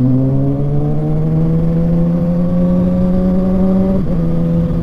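Inline-four sport motorcycle engine accelerating in gear, its pitch rising steadily. About four seconds in, an upshift drops the pitch and the engine pulls on steadily.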